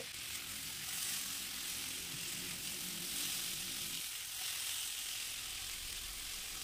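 Sliced pumpkin, onion and chopped tomato sizzling steadily in oil in a frying pan on a low flame while a spatula stirs them.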